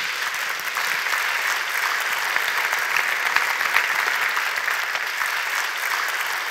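A large audience applauding steadily: dense clapping from many hands.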